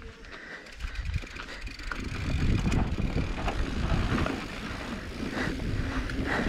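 Mountain bike rolling over a dirt trail: tyre rumble and rattling, with wind on the microphone, growing louder about two seconds in.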